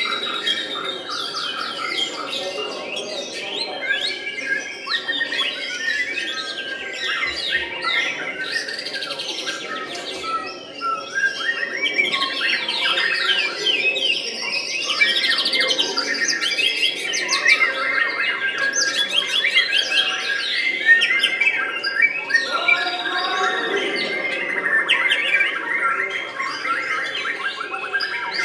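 White-rumped shama (murai batu) singing continuously: a fast, varied run of trills, chirps and whistled glides that grows louder about halfway through.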